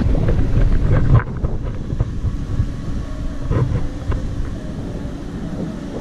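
Wind buffeting the phone's microphone while parasailing high above the sea, a heavy low rumble, loudest in the first second or so.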